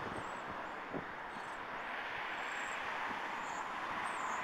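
Steady road-traffic noise from cars passing on the road, mostly tyre noise, growing slightly louder near the end, with faint high chirps above it.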